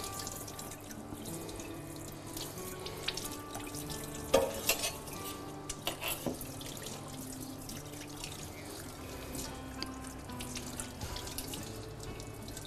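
Tap water running into a kitchen sink as a cutting board is rinsed under it, with a few sharp knocks about four and six seconds in.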